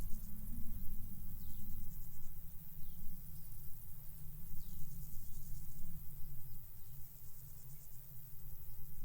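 Wind rumbling on the microphone under the steady, finely pulsing high buzz of field crickets. Short falling chirps sound about every second and a half.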